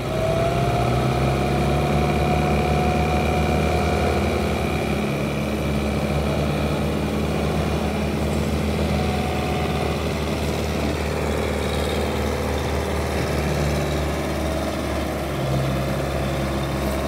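A farm tractor's diesel engine running hard as it pulls a heavily loaded sugarcane trolley. The revs climb at the start, then hold steady.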